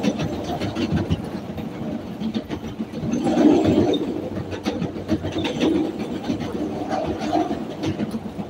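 A CTA Red Line rapid-transit train running along the track, heard from inside the car: a steady rumble with its wheels clicking over the rail joints, swelling briefly about three and a half seconds in.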